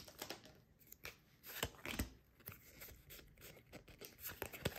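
Faint handling of Pokémon trading cards and their foil booster wrapper as the cards come out of a freshly opened pack: light rustling with a few sharp clicks, the clearest about two seconds in and near the end.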